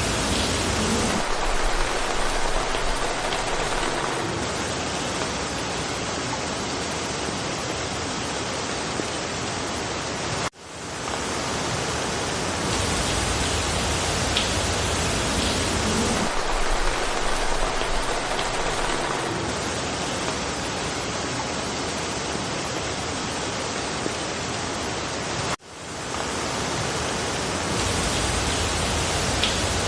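Steady hiss of rain falling through a forest. The level dips briefly twice, about fifteen seconds apart, where the looped recording starts over.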